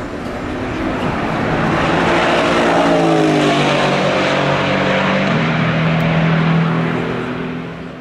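Mercedes-AMG GT4's 4.0-litre twin-turbo V8 race engine under power as the car passes, growing louder over the first few seconds, with a step in its note about five seconds in, then fading away near the end.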